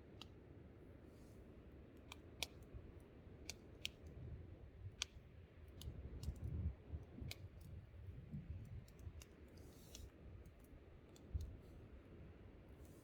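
Wood campfire crackling, with sharp irregular pops over the low rumble of wind.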